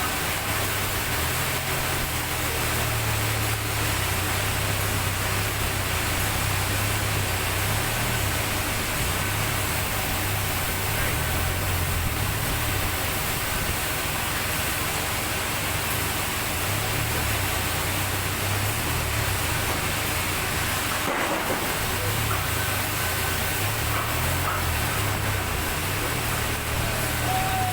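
Sawmill machinery running steadily: a low, wavering engine-like hum under a constant noisy hiss, briefly dropping out about three-quarters of the way through.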